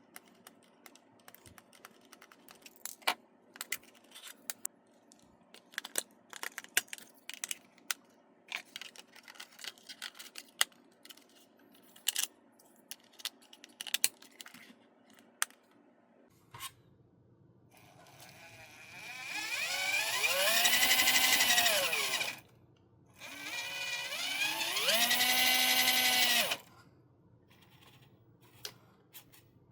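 Small plastic clicks and knocks of parts being handled, then a small electric motor whirring twice, each time spinning up in pitch, holding, and winding back down.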